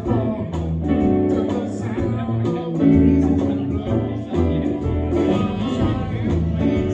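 Live band playing on stage: electric guitar, drums and upright bass with a man singing lead into a microphone.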